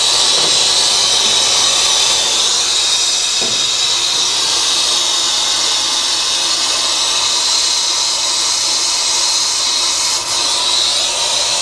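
Brazing torch flame burning with a loud, steady hiss as it heats the copper cap on a 7/8-inch refrigerant line at an evaporator coil, unsweating the joint.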